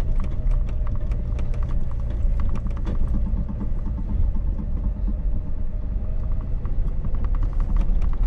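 Jeep driving over a bumpy sand trail: a steady low engine and drivetrain rumble with frequent rattling knocks from the body and suspension as it rolls over the uneven ground.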